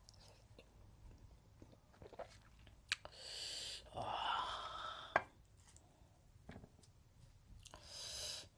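Close mouth sounds of a person eating: soft chewing clicks and smacks, with a loud hissing breath about three seconds in that runs for two seconds, and another shorter one near the end.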